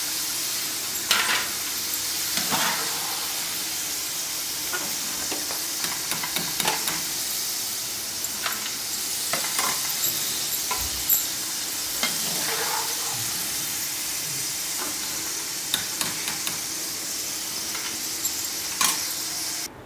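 Potato fries sizzling in hot oil in a kadhai as they are lifted out, with a metal spatula clinking and scraping now and then. The sizzle cuts off suddenly near the end.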